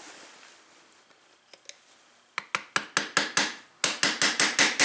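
Quick metal-on-metal hammer taps, about six a second in two runs, starting a little over two seconds in: the master link of a Honda 300EX ATV's drive chain is being knocked loose.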